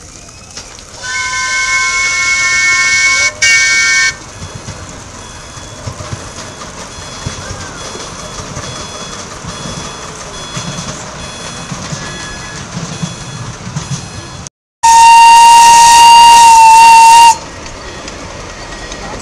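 Whistle of a miniature ride-on steam locomotive blown twice: a blast of several tones at once about a second in, lasting some three seconds, and a louder single-pitched blast near the end. Between the blasts, the train rumbles along the track.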